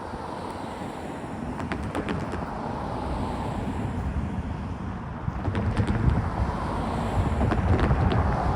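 A freight train's grain hopper cars rolling past, steel wheels clicking irregularly over the rails, with a low rumble that grows louder, plus some wind on the microphone.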